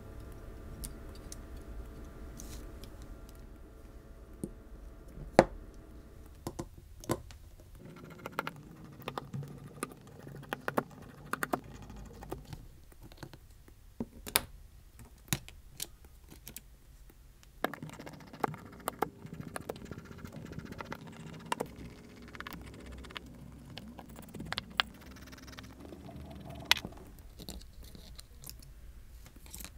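Small metal hand tools clicking, tapping and scraping on the parts of an iPhone 12 as it is taken apart: a spudger, tweezers and screwdriver on screws, brackets and the frame. The clicks come scattered and irregular, a few much sharper than the rest.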